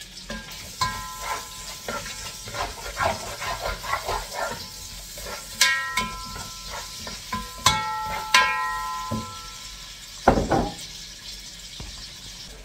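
A spoon scraping and knocking chopped tomatoes and onions off a ceramic plate into a cooking pot, then stirring in the pot; a few sharp ringing knocks come in the middle, and a dull thump about ten seconds in.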